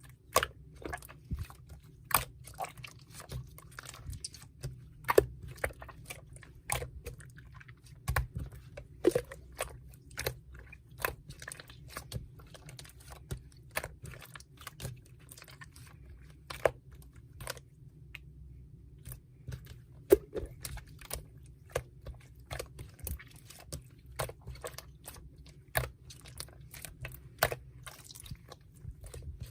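Slime being squished and pressed by hand, giving a steady run of irregular sharp clicks and crackles, a few of them louder than the rest.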